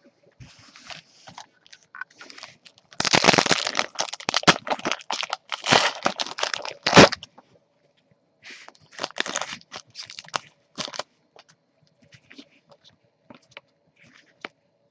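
Foil trading-card packs being torn open and crinkled by gloved hands: a dense run of crackling from about 3 to 7 seconds in, then shorter crinkles around 9 to 11 seconds, and a few small ticks.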